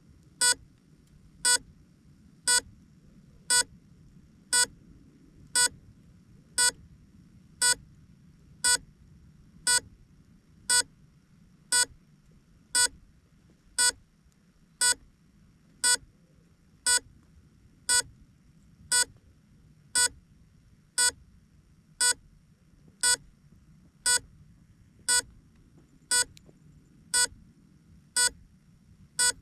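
Small electronic buzzer, as fitted to an FPV drone, beeping about once a second with short, evenly spaced beeps.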